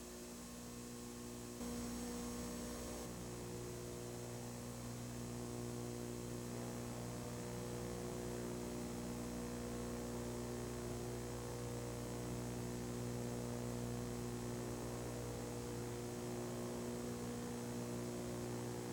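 Steady electrical mains hum: several even tones stacked over a faint hiss, a little louder about a second and a half in.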